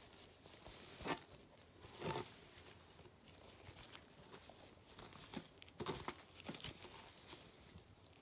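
Faint handling noises: a few short scrapes and rustles as a plastic shampoo bottle and a comb are moved about close to the microphone.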